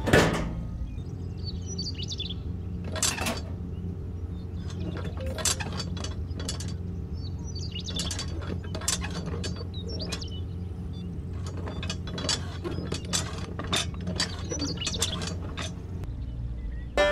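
Scattered small clicks and taps of plastic and metal parts being handled as a model cultivator is hitched to a miniature tractor's spring-loaded drawbar and pinned in place, over a steady low hum.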